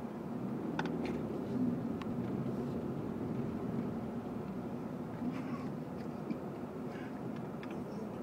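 1998 Honda Accord's 1.8-litre four-cylinder engine idling steadily, heard from inside the cabin as the car rolls slowly forward. A few short, sharp clicks come through over it.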